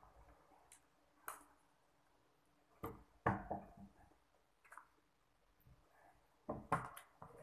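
Close-up eating sounds: about half a dozen short, wet mouth smacks and clicks while chewing a mouthful of almond brownie fudge ice cream, with quiet stretches between them; the loudest comes a little over three seconds in.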